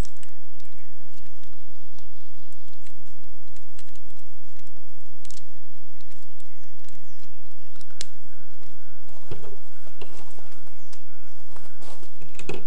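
Scattered light clicks and handling noise as a clevis pin and hitch pin are fitted to secure the auger bit to a power earth auger, over a steady low background rumble.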